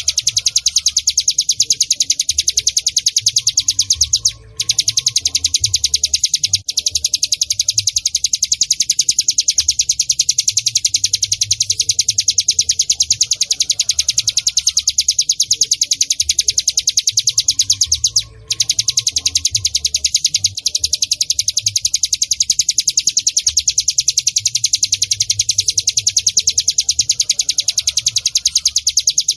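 Ciblek gunung (cigun), a prinia, calling: a long, very fast series of high chirps that breaks off briefly twice.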